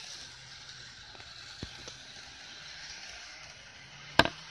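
Model railway running: a faint steady mechanical hiss and low hum from a model train on the track, with a few light clicks and one sharp click about four seconds in.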